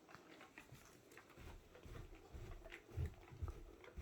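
Faint footsteps, soft low thumps at about two a second, starting a little over a second in, with light clicks of handling the camera.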